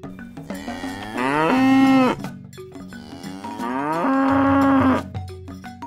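Cow mooing twice, two long moos that each rise in pitch and then hold before breaking off, over background music with a light percussion beat.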